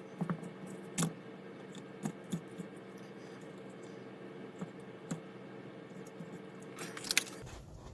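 Scattered light clicks and taps of small parts being handled, about a dozen in all with a quick cluster near the end, as wires are connected to a model's lighting; a faint steady hum runs underneath.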